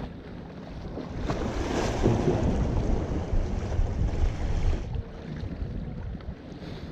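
Ocean wave surging in and washing back, building about a second in and dying down just before five seconds, over steady wind rumble on the microphone.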